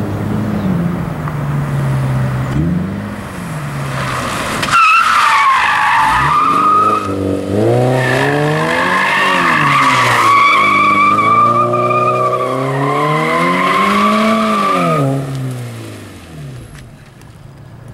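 2014 Scion FR-S's flat-four engine on Borla straight pipes, revving up and down as the car is drifted. From about five seconds in, a loud sustained tire squeal rides over the revving engine, and both fade near the end.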